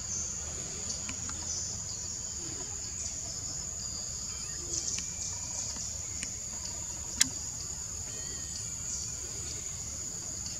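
Steady high-pitched buzzing of an insect chorus in forest trees. A single sharp click about seven seconds in, with a few faint ticks scattered around it.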